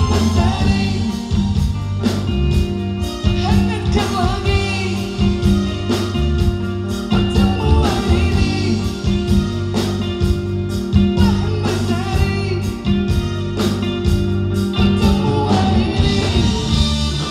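Live band performance: a woman singing a melody into a microphone over electric guitar, keyboard and drums, amplified through stage speakers.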